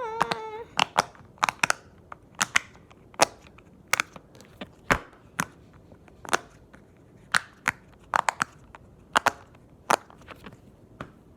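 A clicky fidget toy being pressed over and over: sharp, separate clicks at an irregular pace, often in quick pairs.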